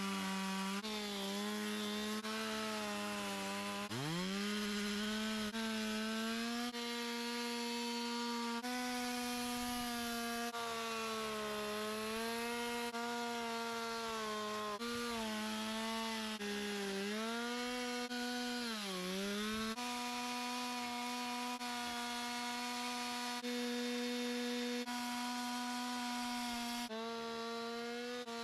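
Two-stroke chainsaw running at high revs while carving wood, its engine pitch dipping sharply and recovering twice as the chain bites into the log.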